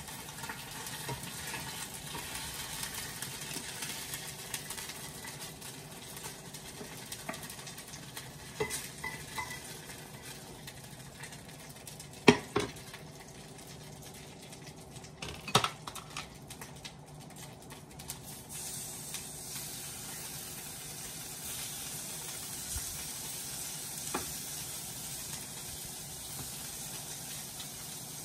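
Hot oil sizzling steadily in a frying pan, the sizzle growing louder about two-thirds of the way in, with utensils clattering against the pans, including two sharp clacks a few seconds apart near the middle.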